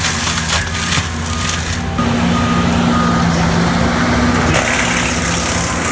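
A heavy forestry machine's engine running steadily under load, with short high beeps repeating now and then over it.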